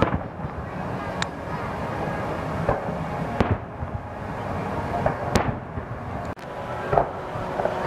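Aerial fireworks shells bursting at a distance, about seven booms spaced irregularly, roughly a second apart.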